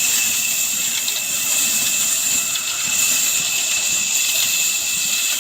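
Old black oil engine driving a wood-cutting saw machine, running steadily with an even hiss and a steady high-pitched whine.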